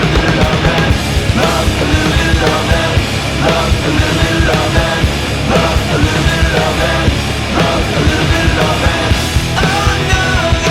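Loud punk-rock band recording with distorted guitars and drums playing at a steady, even level.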